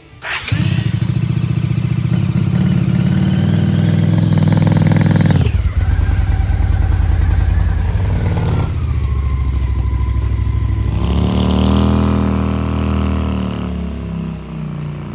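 Motorcycle engine started at the handlebar starter switch, catching about half a second in and running loud and steady. Near the middle the sound changes abruptly to a lower idle, then the engine revs up around twelve seconds and fades as the bike rides away.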